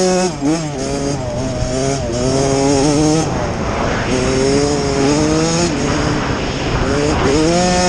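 Small off-road motorcycle engines revving, their pitch climbing and dropping again and again as the throttle is opened and shut.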